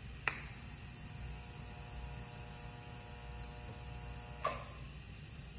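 TIG welding arc on stainless steel header tubing: a sharp crack as the arc strikes about a quarter second in, then a steady buzzing hum for about four seconds that stops with a short hiss about four and a half seconds in.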